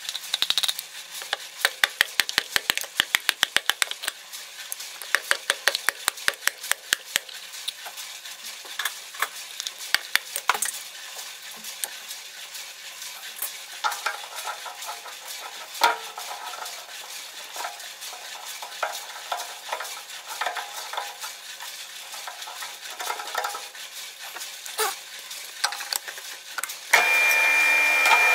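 Bursts of sharp clicking and scraping as the hole saw is handled against the drill-press table. About 27 seconds in, the drill press starts and the hole saw spins with a steady high whine.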